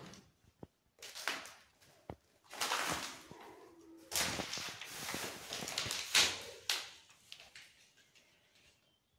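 Footsteps crunching and scraping over broken plaster, tile and paper debris on a concrete floor, in irregular bursts that fade out near the end.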